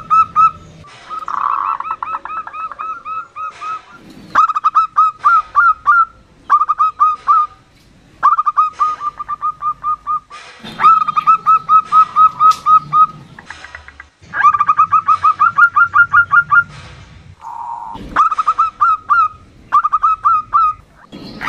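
Female zebra dove (perkutut) calling: phrase after phrase of rapid staccato notes, each trill lasting one to two seconds, with short pauses between and a few faint clicks in the gaps.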